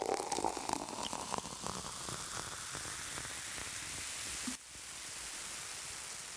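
Steady hiss like static, crackling with small clicks in the first second or two, then even. It drops sharply about four and a half seconds in, picks up again and starts to fade near the end.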